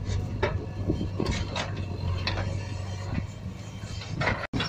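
Plastic toy excavator worked by hand, its bucket tipping sand into a plastic toy dump truck's bed: a series of separate plastic clicks and rattles with sand spilling, over a steady low hum.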